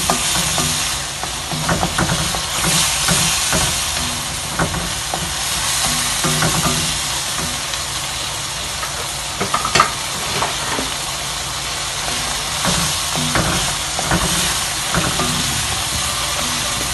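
Cold mixed vegetables (corn, peas, carrots, onion) sizzling in hot oil in a wok, stirred with a wooden spatula that scrapes and taps against the pan, with a sharper click about ten seconds in.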